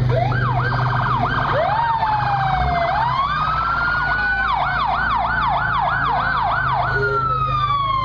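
Electronic emergency-vehicle siren cycling through its modes: a fast warble, a slow rising wail, a slower up-and-down yelp of about three or four sweeps a second, then one long falling tone near the end.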